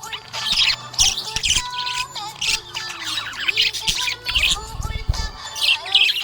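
Budgies chirping and warbling continuously, a rapid stream of short high chirps with a few longer whistled notes mixed in.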